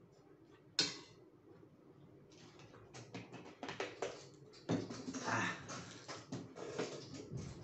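Plastic water bottle being twisted and crushed by hand, giving a sharp click about a second in and then a long run of crackles and crinkles. Noodles are slurped alongside about halfway through.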